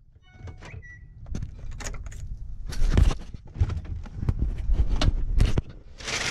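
Car-interior handling sounds in a GMC Denali SUV: a few short chime tones in the first second, then a run of clicks and knocks as the interior door handle and door are worked, with paper-bag rustling near the end.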